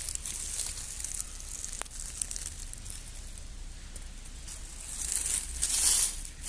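Dry fallen leaves rustling and crinkling as they are pushed aside, loudest near the end.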